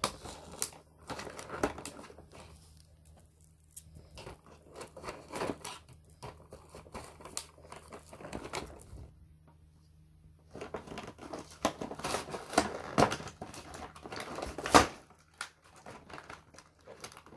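Toy packaging being opened by hand: rustling, crinkling and tearing with scattered clicks and knocks, a brief lull about nine seconds in, then busier handling with one sharp loud knock near the end.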